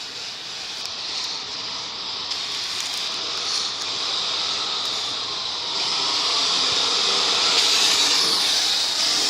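Radio-controlled Mk2 Escort model car running, a steady hissing noise that gets louder from about six seconds in.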